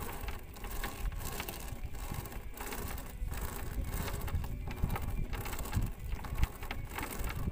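Wet nylon gill net being hauled by hand into a wooden boat, the mesh rustling and dripping in quick, irregular crackles, over a low rumble of wind on the microphone.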